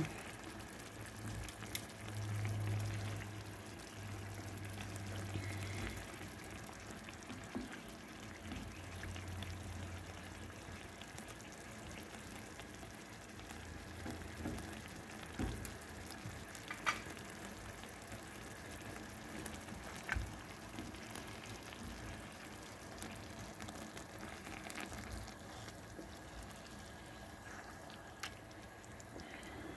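Chicken and shiitake mushrooms simmering in their sauce in a pan, a faint steady sizzle, with a low hum that comes and goes in the first half and a few sharp clicks around the middle.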